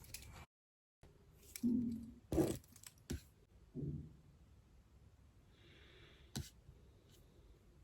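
A hungry stomach growling: two short, low gurgles, one about a second and a half in and another about four seconds in, with a sharp knock between them. A few faint clicks follow.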